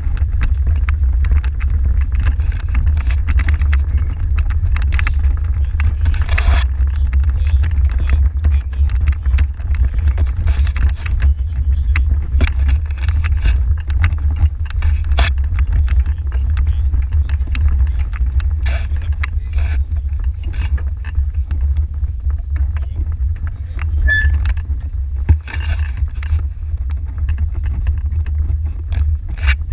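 Horse-drawn marathon carriage rolling over grass: a steady low rumble with frequent clicks and rattles from its metal frame and step.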